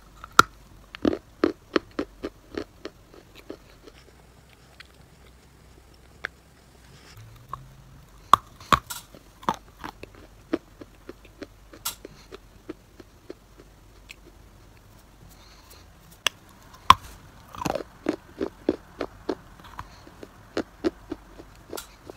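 Biting into and chewing a lump of chalk clay, close to the microphone: runs of rapid, sharp crunches and crackles with short quieter pauses between them.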